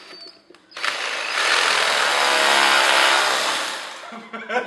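Power drill with a masonry bit boring into hard concrete floor, starting about a second in, running for about three seconds and winding down near the end.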